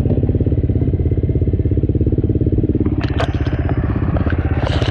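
KTM 350 dirt bike's single-cylinder four-stroke engine running steadily, with no revving. From about three seconds in, branches and leaves scrape and crackle against the bike as it moves off down an overgrown trail.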